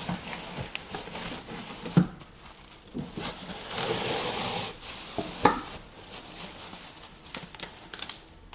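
Bubble wrap crinkling and rustling as the wrapped stainless steel fermenter lid is handled and lifted out of its cardboard box, with a few sharp knocks, the loudest about two seconds and five and a half seconds in.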